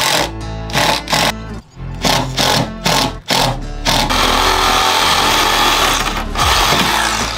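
A cordless drill runs in short bursts driving screws, then from about four seconds in a Milwaukee reciprocating saw cuts steadily through rubber hose, over background music.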